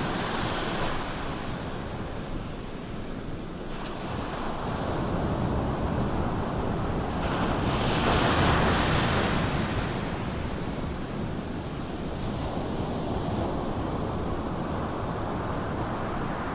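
Ocean surf breaking and washing onto a sandy beach, a steady rushing noise that swells to its loudest about eight seconds in, then eases.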